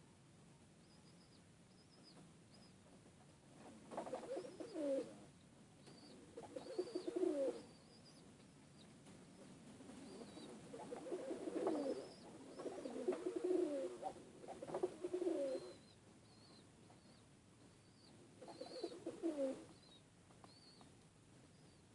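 Baladi domestic pigeons cooing in about five bouts of low coos, with faint high chirps repeating throughout.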